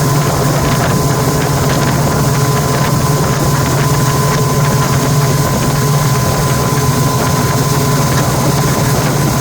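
Motorboat engine running steadily with a constant low hum and a thin whine above it, heard from aboard the boat.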